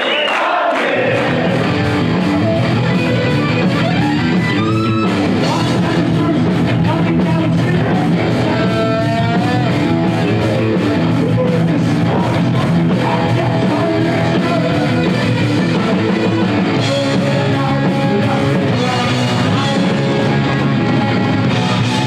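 Heavy metal band music: electric guitars, bass and drums playing steadily, with a singer's voice.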